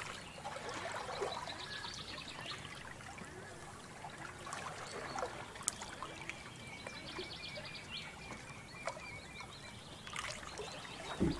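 Small waves lapping and trickling among boulders at the edge of a calm sea.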